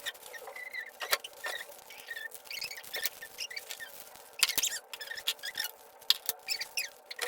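Plastic toy packaging being handled and pried open: scattered sharp clicks and short high squeaks of plastic rubbing, over a steady background hum.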